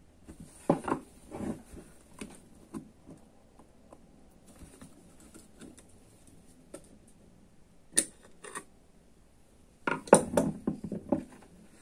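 Scattered clicks, taps and scrapes of a screwdriver and small metal and plastic parts as the end cover of a motorcycle radiator fan's electric motor is worked loose and lifted off, with two sharp clicks about eight seconds in and a quick run of clicks and knocks near the end.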